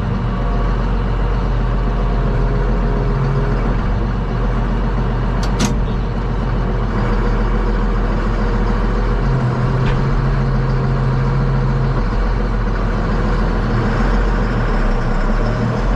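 Tractor engine running steadily, with a couple of sharp clicks partway through.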